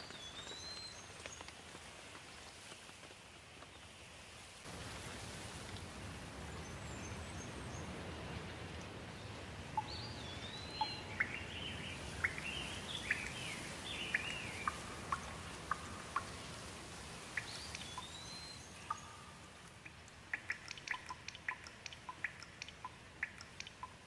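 Steady rain falling, getting fuller about five seconds in. A bird calls through it with a short rising-then-falling whistle three times, some eight seconds apart, and a run of quick chirps in the middle; near the end comes a quick run of sharp ticks.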